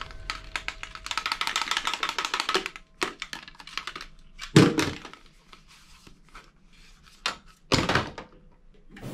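Plastic toys being handled: rapid clicking and rattling as the handles of two plastic toy fire extinguishers are worked, then two thunks as the extinguishers are set down on a pile of plastic toy guns, one halfway through and one near the end.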